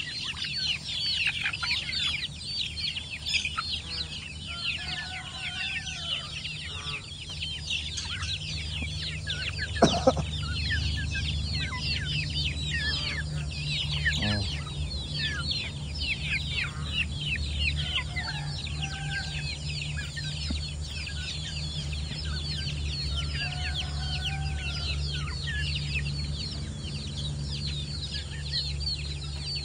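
A flock of young village chickens feeding, a dense, continuous chorus of high, short falling peeps with a few lower clucks mixed in. A steady low hum runs underneath, and a single sharp knock comes about ten seconds in.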